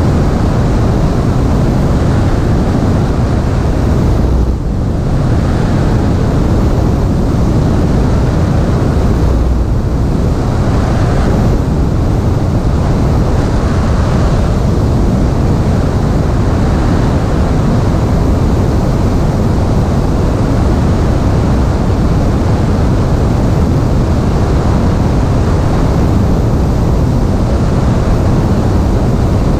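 Steady rush of airflow over a microphone on the tail of a Piper Cherokee, with the light plane's engine and propeller running underneath; the level dips briefly about four seconds in.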